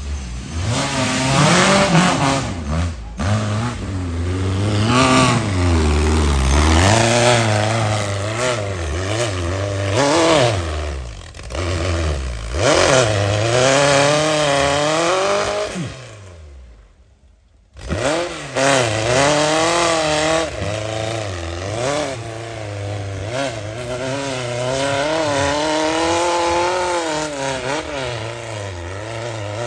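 Off-road racing buggy's engine revving hard, its pitch climbing and falling again and again as the throttle is worked. The sound drops away briefly about two-thirds of the way through, then comes straight back.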